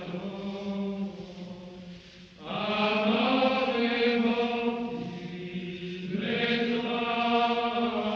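Slow, chant-like background music: long held notes over a steady low drone, swelling into a fuller chord about two and a half seconds in and again about six and a half seconds in.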